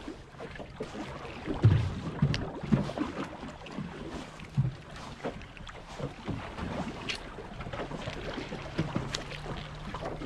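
Water slapping against the hull of a small fishing boat, with wind on the microphone and a few dull knocks, the loudest about two seconds in.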